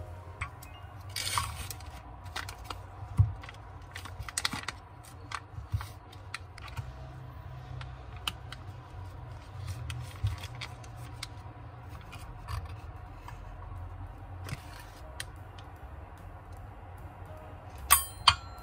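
Food-prep handling sounds on a wooden cutting board: a brie's paper-and-foil wrapper rustling, a knife cutting through the soft cheese, and a steel knife and fork clicking against the board, with two sharp clicks near the end.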